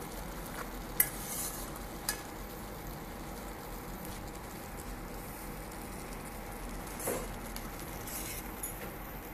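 A spatula stirring vermicelli through hot, bubbling water in a nonstick kadai, over a steady hiss, with two sharp clicks of the spatula against the pan about one and two seconds in and a brief louder scrape near the end.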